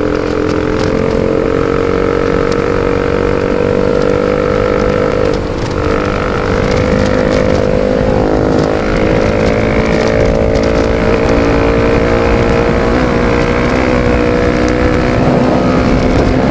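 Bajaj Pulsar RS200's single-cylinder engine through a full-system Akrapovic exhaust with no dB killer, running at steady high revs under way. The exhaust note holds steady and climbs slowly in pitch.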